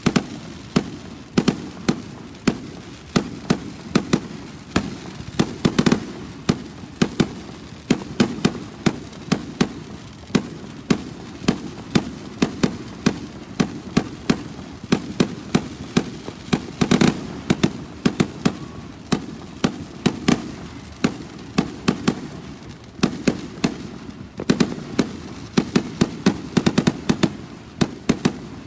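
Fireworks crackling and popping: an unbroken, irregular run of sharp cracks, several a second, with a louder cluster a little past the middle.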